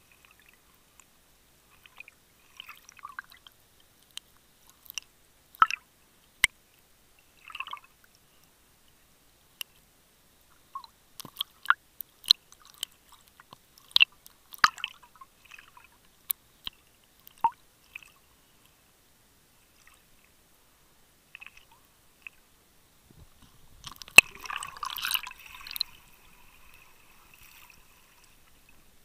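Underwater sound picked up by a snorkeler's camera: scattered sharp clicks and crackles, with a denser burst of crackling noise about 24 seconds in.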